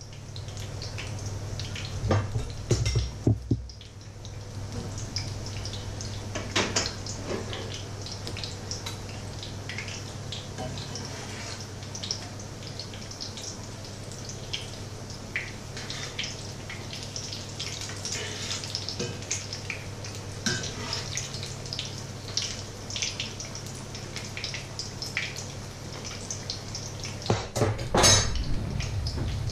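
Batter fritters shallow-frying in hot oil in a pan: steady sizzling with many small crackles and pops. Metal utensils clink against the pan about two seconds in and again near the end, over a steady low hum.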